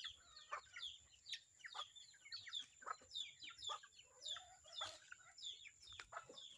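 Native chickens clucking and peeping softly: a faint, continuous run of short high calls that slide down in pitch, two or three a second.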